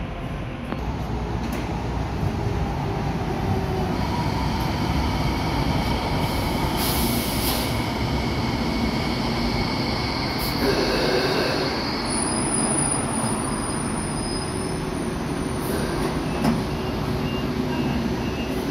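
Hong Kong MTR Light Rail cars running along the platform track with a steady rumble. Their wheels squeal in high drawn-out tones from about four seconds in until about twelve seconds, followed by a thin high whine.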